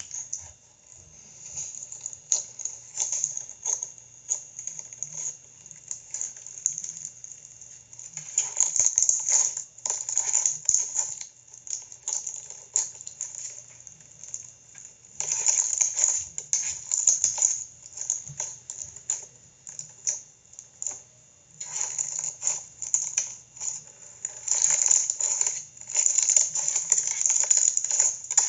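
Blue slime full of purple foam beads being squeezed and poked, crunching and crackling in bursts of many tiny clicks that come and go every few seconds.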